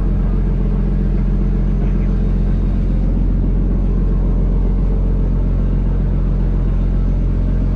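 A fishing trawler's diesel engine running steadily, an even low-pitched drone that does not change.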